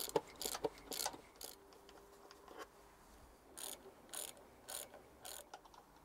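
Ratchet wrench with an 18 mm deep socket clicking in short bursts as the engine mount bolts are undone: several clicks in the first second and a half, then four more about half a second apart.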